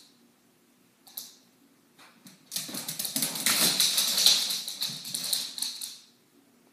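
Dogs' paws and claws clicking and scrabbling on a hard floor as they run in a play chase: a few single clicks, then a dense, loud flurry starting about two and a half seconds in and lasting about three and a half seconds.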